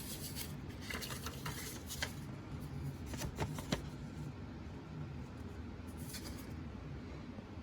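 Paper rustling in several short spells as a small instruction brochure is handled, with a few sharp clicks around the middle, over a low steady hum.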